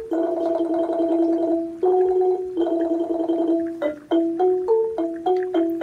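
Background music: a simple melody of long held notes broken by short quick runs of stepping notes.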